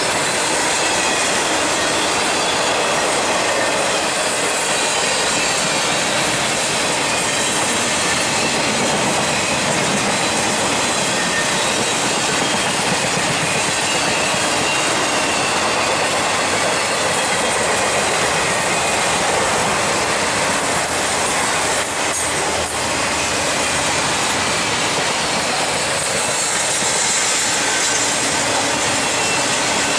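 Intermodal freight train's trailer-carrying flatcars rolling past at steady speed, a constant rush of wheel-on-rail noise with faint, thin wheel squeal tones riding over it. A few sharp clicks come about two-thirds of the way through.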